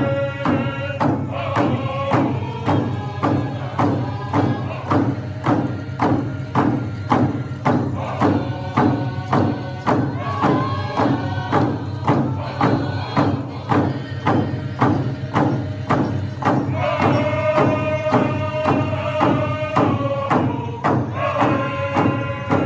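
Powwow drum group: singers striking a large hand drum in a steady, even beat while singing in chorus, the high lead voices coming in strongly at the start and again over the last few seconds.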